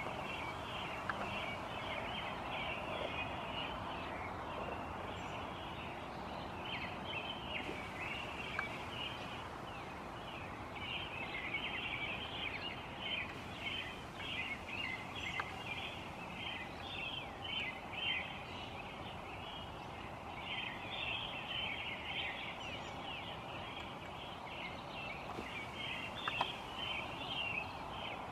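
Many small birds chirping and chattering over one another without a break, the pre-dawn bird chorus, over a faint steady background noise.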